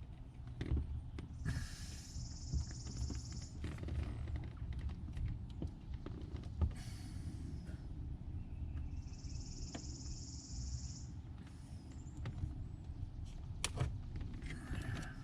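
Hard plastic console trim and shifter parts being worked loose by hand, giving scattered clicks and knocks over a steady low hum. A high hiss comes twice, each time for about two seconds.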